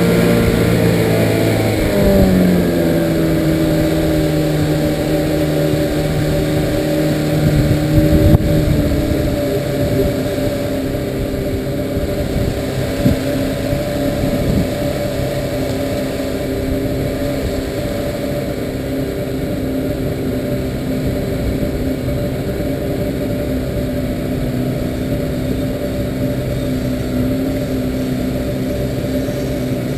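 Outboard motor pushing a small aluminium skiff, running steadily. Its pitch drops about two seconds in and again at about eight seconds as the engine slows, then it runs on evenly at the lower speed.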